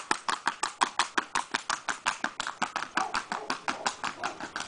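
A mare's hooves striking the ground at a fast, even gait: a rapid, regular clatter of about nine to ten footfalls a second.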